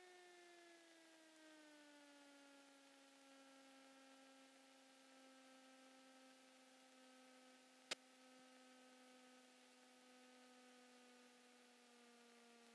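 Near silence on the Cessna 172's cockpit intercom recording, with only a faint whine tied to engine speed, typical of alternator whine leaking into the intercom. It drops in pitch over the first two seconds and then holds steady, with a single sharp click about eight seconds in.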